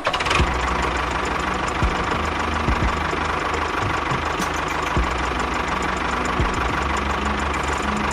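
A motor running steadily with a busy mechanical rattle and a constant whine, broken by a few short knocks.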